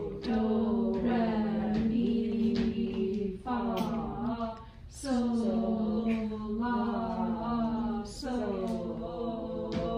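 A 7th grade tenor-bass choir singing long held notes in unison, sight-singing from the teacher's solfege hand signs. There are about four notes, each held one to three seconds, with brief breaks between them.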